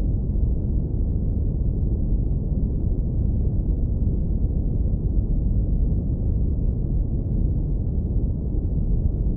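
Steady, deep rumble of synthetic brown noise, filtered down to the low bass so that nearly all of it sits below a few hundred hertz, with no treble at all.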